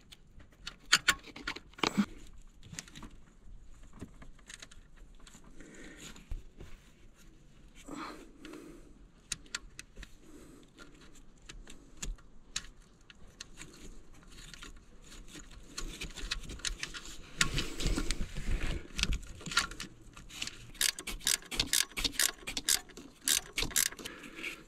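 Scattered metallic clicks and clinks as wiring nuts are fastened onto a pickup truck's alternator terminals with hand tools. The clicks grow busier and louder in the second half, ending in a quick run of clicks as the nut is run down tight.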